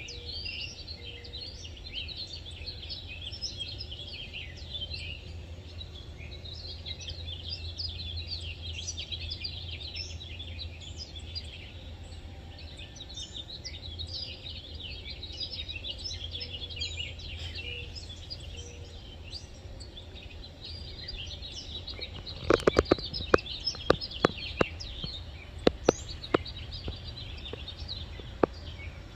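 Outdoor ambience of many birds chirping continuously, over a low steady rumble. Near the end, a run of a dozen or so sharp, loud clicks.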